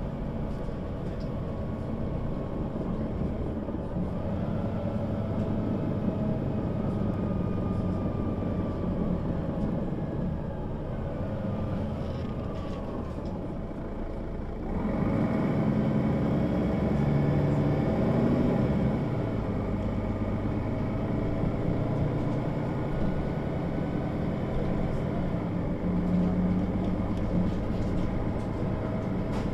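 Mercedes-Benz O 530 G Citaro articulated bus running, its diesel engine and drivetrain droning steadily with faint whining tones gliding up and down. The engine grows louder about halfway through.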